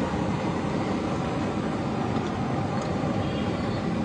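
Steady low roar of a street-stall gas burner heating a wok of boiling water as green beans blanch in it.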